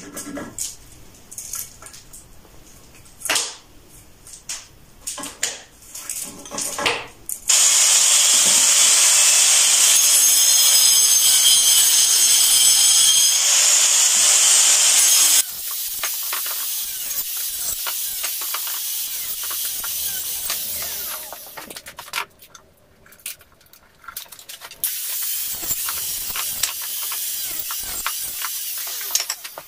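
Angle grinder cutting through a wooden board, a steady high hissing whine that starts about a quarter of the way in and is loudest up to about halfway, then runs lighter, stops briefly and starts again near the end. Before the cutting, a few short knocks and scrapes of the board being handled and marked.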